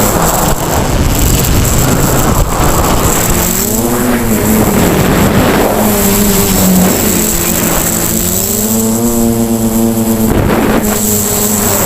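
Quadcopter's electric motors and propellers running in flight. Their pitch rises and falls with throttle changes, and a steady high whine and a rush of air noise run underneath.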